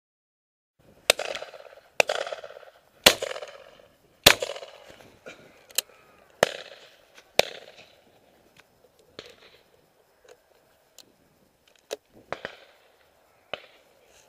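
Several shotguns firing at driven ducks: sharp shots starting about a second in, the loudest coming roughly once a second for the first several seconds, each with a long echoing tail, then fainter, more scattered shots from further off.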